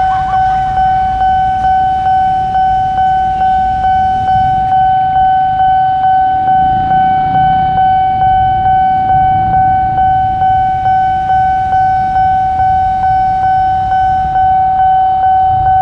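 Railway level-crossing warning bell ringing, a loud high tone pulsing steadily about twice a second: the alarm that sounds while the barrier is down for an approaching train.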